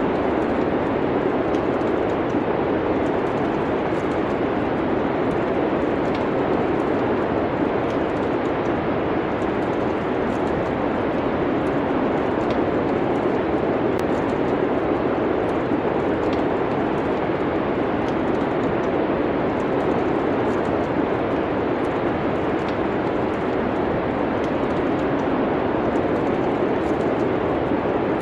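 Steady rushing of winter wind, even and unbroken, with faint scattered crackles from a wood fire.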